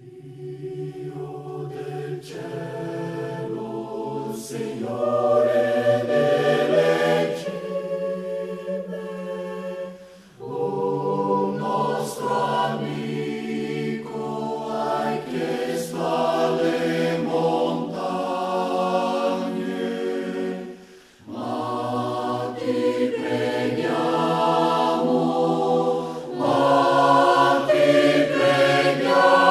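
A choir singing in long held phrases, with brief pauses about ten and twenty-one seconds in.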